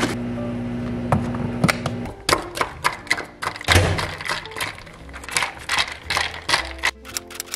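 Iced coffee being made in a glass: a short pour, then ice cubes clinking against the glass in quick, irregular taps as it is stirred. Music notes come in near the end.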